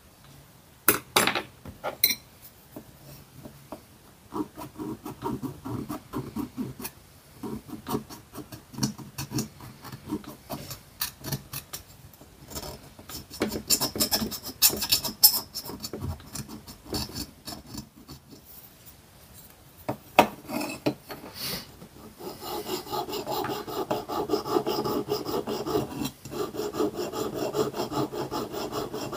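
A needle file rasping on the bare die-cast zinc-alloy cab of a Dinky Toys Bedford model truck. It starts as short, irregular scraping strokes with a few sharp clicks. Near the end it turns to fast, steady back-and-forth filing.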